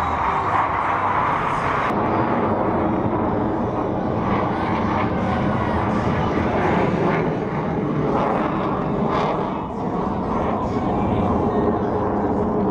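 US Navy Blue Angels F/A-18 Hornet jets flying in formation overhead: their engines make a steady, continuous jet noise that dips slightly about ten seconds in.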